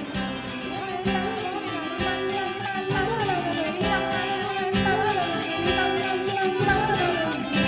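Cartoon background music with a steady beat and a wavering melody.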